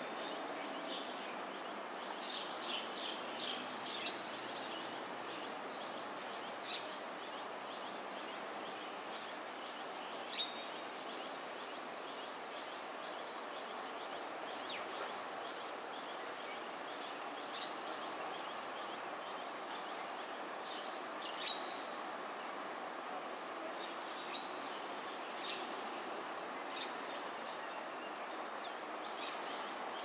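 A steady high-pitched insect chorus over an even outdoor hiss, with short chirps here and there, a few close together about three seconds in and single louder ones later.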